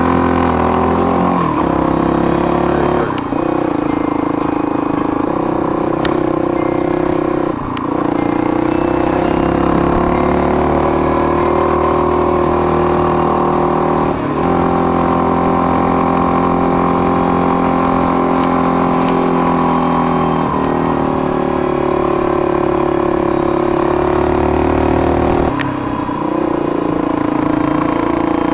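Single-cylinder trail motorcycle engine running under load while riding, with about six brief dips where the pitch steps, typical of gear changes.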